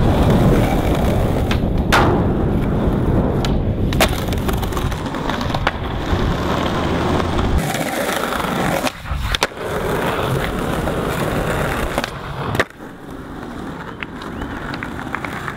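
Skateboard wheels rolling over rough pavement, a continuous grinding rumble, broken several times by sharp clacks of the board popping and landing.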